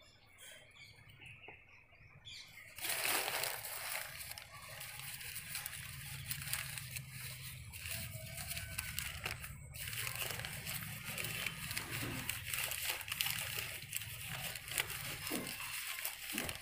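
Crumpled sheets of ruled paper rustling and crackling as eggs are unwrapped from them by hand. It is soft for the first few seconds, then a dense crackling runs on over a low steady rumble.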